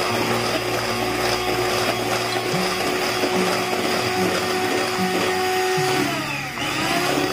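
Electric hand mixer whipping cream, the motor and beaters running steadily; about six seconds in the motor briefly slows and then speeds back up.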